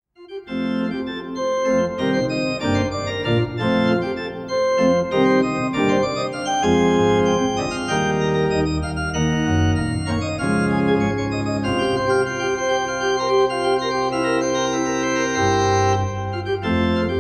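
Organ music playing full, sustained chords that change every second or so, starting suddenly about half a second in.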